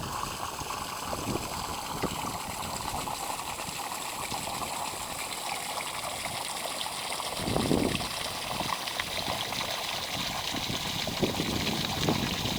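Steady rush of running water, with a dull low thump about eight seconds in.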